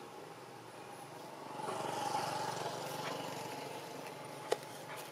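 A small engine running in the background, swelling about one and a half seconds in and slowly fading, as of a passing vehicle; a single sharp click near the end.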